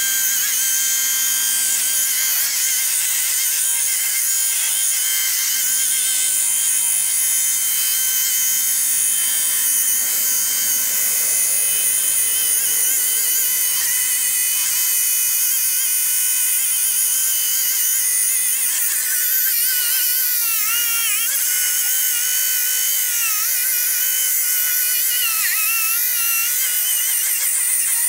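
Small cordless rotary polisher running on speed setting 4, its foam pad buffing a steel exhaust tip with metal polish. It makes a steady high-pitched whine, and the pitch wavers from a little past the middle onward.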